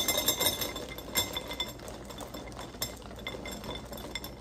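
Dry Swiss Rolls cereal puffs poured from the box into a glass bowl, a dense run of small clicks and clinks on the glass. The clicks are loudest at the start and thin out and grow quieter as the pour slows.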